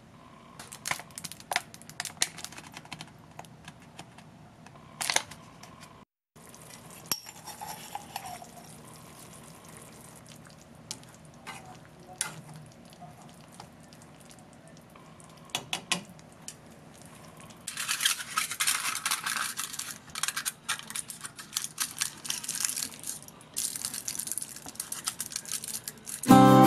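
A ladle and chopsticks click and scrape against a saucepan of simmering hijiki. From a little past halfway there is a dense crackling sizzle as the simmering liquid is boiled down.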